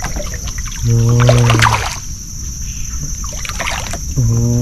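Water splashing and knocking against a small boat as a hooked fish is brought aboard. A low steady hum sounds twice, about a second in and again near the end.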